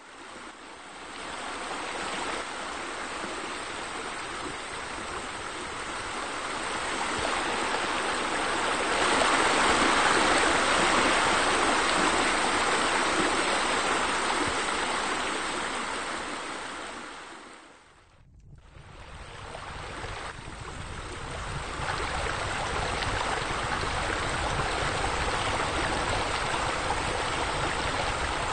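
Steady rush of flowing water that swells louder toward the middle, drops away briefly about eighteen seconds in, then fades back up and holds steady.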